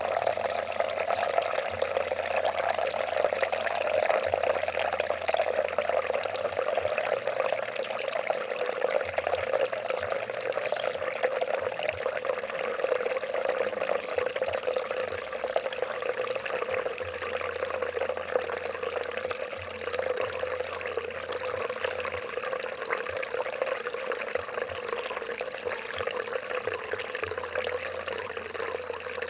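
Water gurgling and trickling steadily, a continuous stream of small splashes with no break.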